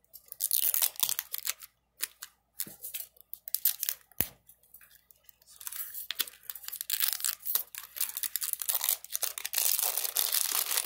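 Glossy plastic wrap layer of an L.O.L. Surprise toy ball being peeled and torn off by hand, crinkling and crackling. Short bursts come first, and from about halfway through the crinkling runs on steadily.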